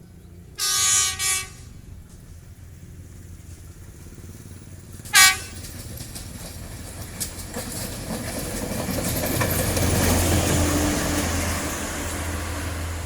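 Train horn sounding: a blast of about a second that breaks briefly near its end, then one short toot about five seconds in. A passing train's rumble and wheel noise then builds up, loudest about ten seconds in, and eases off.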